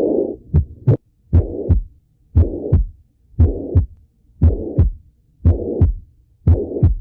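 Heart sounds as heard through a stethoscope, about one beat a second. Each beat has two short, sharp heart sounds with a harsh murmur filling the gap between them, followed by a quiet pause.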